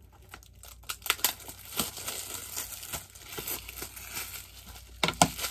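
Thin plastic shrink wrap crinkling and crackling as it is peeled off a Blu-ray case and scrunched up in the hand, starting about a second in with a run of sharp crackles.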